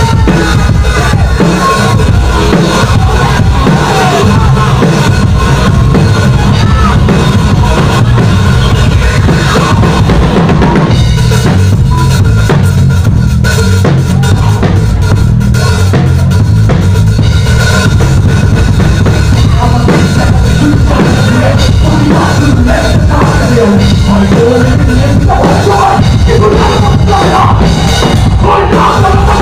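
Live rock band playing, heard close to the drum kit: a dense, driving beat of kick drum and snare, very loud, with the rest of the band behind it.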